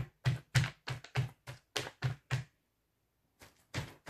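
A tennis ball on a string dabbed over and over onto a paper collage surface to print paint, making even taps about three a second. The dabbing stops for about a second, then starts again near the end.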